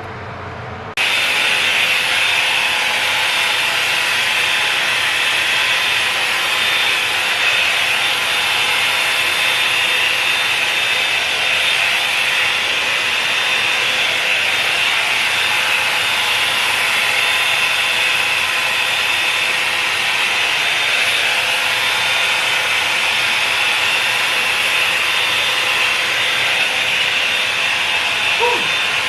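Revlon One-Step Volumizer hot-air brush dryer switched on about a second in, then running steadily, its fan and motor giving a constant blowing whir.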